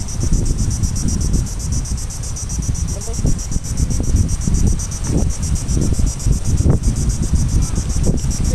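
Insects chirring steadily, a high drone with a fast, even pulse, over a louder low rumble.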